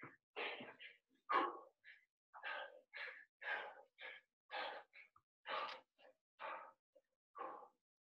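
Heavy, quick breathing of a man winded from exercise: short breaths in and out, about two a second.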